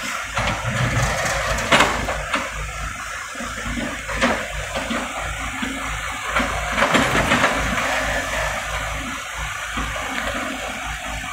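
Komatsu PC78US excavator's diesel engine running under load while its bucket scrapes and scoops broken old asphalt, with chunks of rubble clattering and knocking several times.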